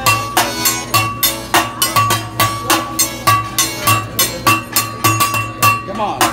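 Hibachi chef drumming a steel spatula and fork against each other and the griddle in a quick, even rhythm: sharp metallic clacks, several a second, each with a short ring.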